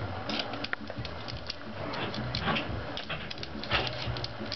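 Scattered small clicks and taps of rifle parts being handled and unscrewed while the free-floating handguard's mounts and screw are taken off, over a steady low hum.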